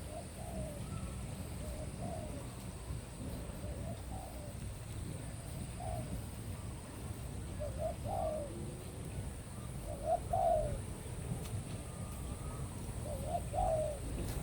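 A dove cooing: a series of short, repeated coos about every second or two, loudest about two-thirds of the way in and near the end, over a steady low rumble.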